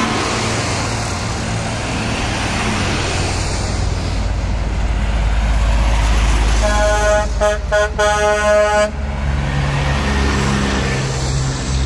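Heavy trucks driving past close by, their diesel engines rumbling. About seven seconds in, a truck horn sounds in a string of short blasts lasting about two seconds.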